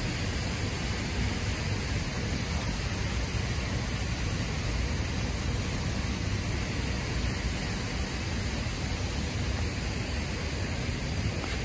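Steady hiss of many pop-up lawn sprinklers spraying water over grass, with a steady low rumble underneath.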